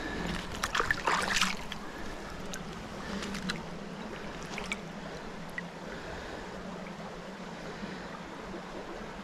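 Shallow river water trickling and sloshing around a landing net held in the current, with several sharper splashes and drips in the first five seconds or so, then a steadier gentle flow.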